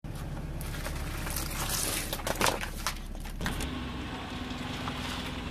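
Car engine running as a tyre rolls over plastic tubs of water beads, with a run of sharp cracks and crunches from about half a second to three and a half seconds in. After that the cracking stops and only a steady engine hum with a low held tone remains as a tyre presses against a large squishy ball.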